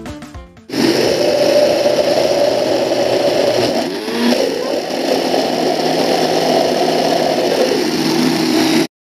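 Electric mixer grinder running steadily, blending chilli powder into a ground walnut and radish chutney. It starts abruptly under a second in and cuts off suddenly near the end.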